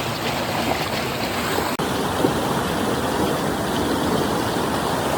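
Water flowing steadily in a stream, a loud even rush. There is a brief break nearly two seconds in, after which the higher hiss changes slightly.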